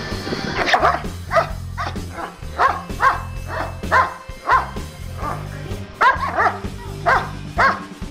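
A dog barking in a string of short, sharp barks, about a dozen with gaps of around half a second and a pause near the middle, over background music.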